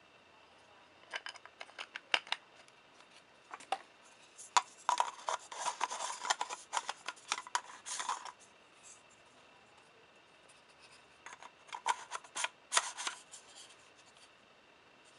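Small plastic clicks and rubbing from a Nikon 50mm f/1.8G lens and its plastic caps being handled. A few single clicks come first, then two bursts of rapid clicking and scraping, one in the middle and one near the end.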